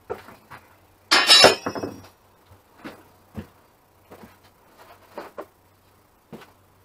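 Hard objects clattering and clinking as someone rummages for a brush among tools: one loud jangling clatter about a second in, then scattered light knocks and clinks.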